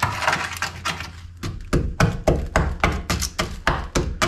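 Irregular sharp taps and knocks of a hand tool prodding and picking at the corroded sheet-steel sill of a classic Mini, coming several a second in the middle, testing how far the rust has eaten into the metal.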